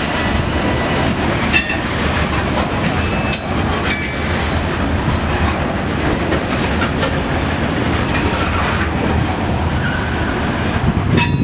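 Covered hopper cars of a grain train rolling past: a steady loud rumble and clatter of steel wheels on the rails, with a few brief high wheel squeals and clanks.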